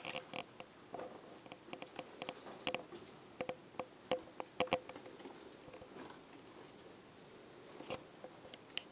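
Pet rodents moving about a cage, making irregular small clicks and taps, thickest over the first five seconds, with a few more near the end.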